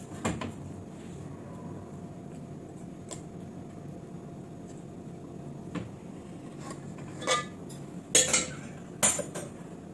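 Metal spoon clinking and scraping against a metal cooking pot while spreading a layer of chicken curry, in scattered knocks, with the loudest two near the end.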